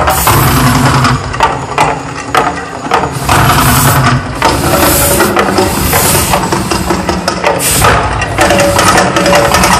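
Fire effects of the Mirage volcano going off in a run of loud, noisy rushes of flame roughly a second apart, over a steady low rumble.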